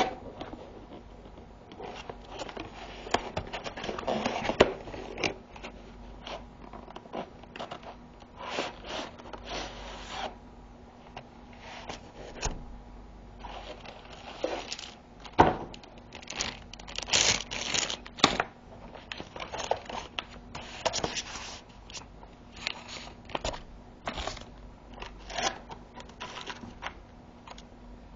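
A graphics card's cardboard packaging being unboxed by hand: irregular scraping, sliding and rustling of cardboard, with occasional sharp knocks.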